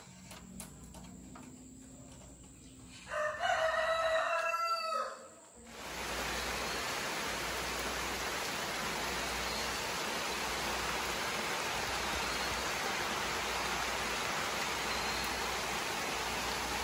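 A rooster crows once, a single call of about two seconds starting about three seconds in. After it, a steady rushing hiss fills the rest.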